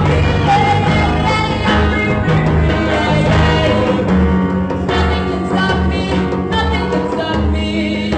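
A band playing an instrumental passage. An electric bass guitar carries a line of held low notes, with guitar and percussion over it.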